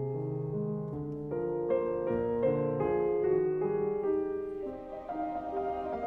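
Background piano music, a run of notes and chords.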